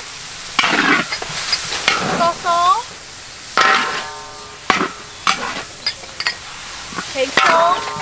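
A metal spatula scraping and stirring ground pork around a large wok, in separate strokes every second or so, a couple of them leaving the wok ringing briefly, over the sizzle of the frying meat.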